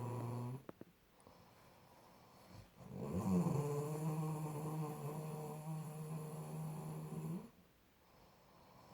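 Snoring: a long, droning, pitched snore that breaks off just under a second in, a quieter lull, then another long snore of about four seconds starting about three seconds in.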